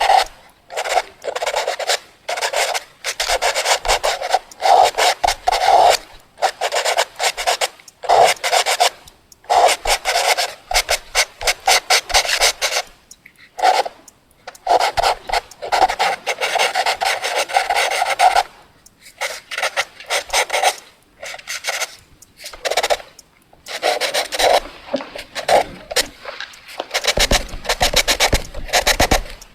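Pencil drawing fast on paper: rapid back-and-forth scratchy strokes in bursts of a second or two, with short pauses between them.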